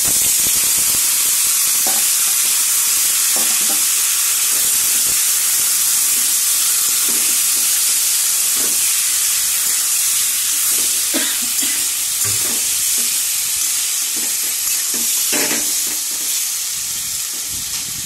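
Hot oil in a steel kadai sizzling loudly the moment masala-marinated ban fish is tipped in, with a metal spatula scraping and stirring now and then. The sizzle eases slightly near the end.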